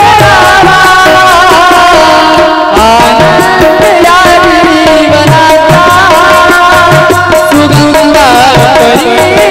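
Marathi devotional bhajan: a wavering sung melody over steady held instrumental notes, with a regular hand-drum beat underneath.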